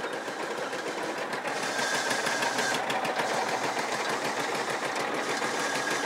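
Engine of a Magna Trac mini crawler dozer running steadily, with its belt-and-pulley track drive engaged and turning, giving a fast, fine rattle. A hiss with a thin whine rises briefly about two seconds in.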